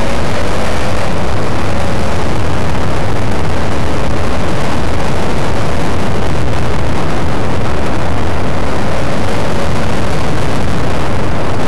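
Loud, steady rush of wind buffeting the microphone of a camera riding on a moving motorcycle, with the bike's engine running underneath.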